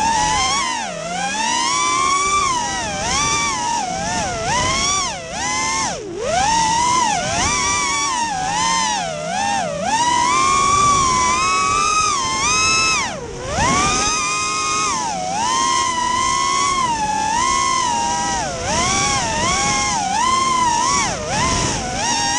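Brushless motors (Racestar BR2205 2600KV) and three-blade 5-inch props of an FPV racing quadcopter, heard from its onboard camera: a loud, high whine that swoops up and down constantly with the throttle. The pitch drops sharply and briefly about a second in, around six seconds in and near thirteen seconds, then climbs back.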